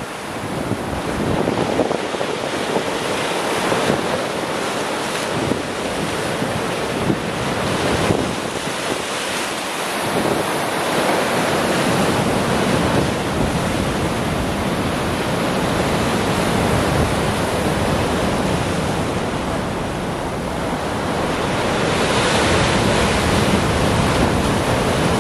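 Mediterranean surf breaking and washing over shoreline rocks, with wind buffeting the microphone. The wash rises and falls with each wave and is loudest near the end.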